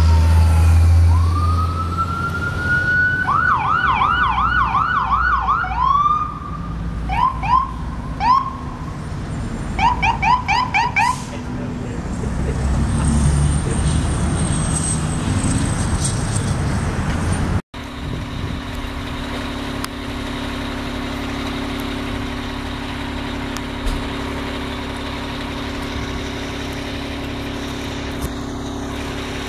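Emergency vehicle electronic siren: a falling tone, a rising wail, then several bursts of rapid yelp sweeps, over a low engine rumble that is loudest at the start. After a sudden break, a steady low hum.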